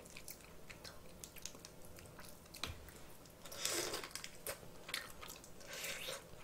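Close-miked mouth sounds of someone eating seasoned cockles: soft chewing with scattered small clicks, and a louder noisy stretch a little past halfway and again near the end.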